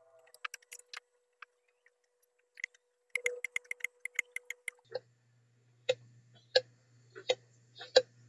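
Clicks and knocks from motorcycle rear shock absorber parts being handled: first scattered clicks, then a quick even run of about seven clicks a second, then four louder knocks spaced less than a second apart.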